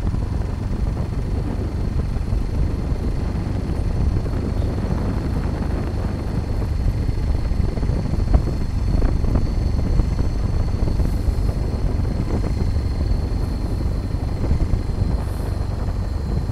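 Steady low rumble of a vehicle moving along a road, with wind buffeting the microphone and a faint steady high tone over it.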